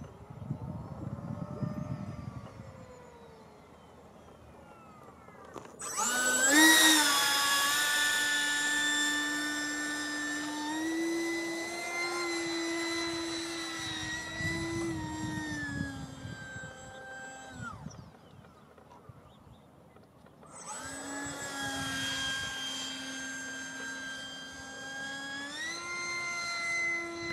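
Radio-controlled model Eurofighter jet in flight, its engine whine heard from the ground. At first it is faint, with a pitch that rises and falls as the jet passes. About six seconds in, a loud whining tone starts and steps higher as the throttle is opened. It cuts out for a couple of seconds and then comes back, stepping up again near the end.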